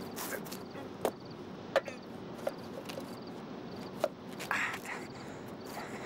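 Crickets chirping steadily about twice a second, with a few sharp light knocks and a short rustling scrape about four and a half seconds in, as a man climbs out over a window sill on a sheet rope.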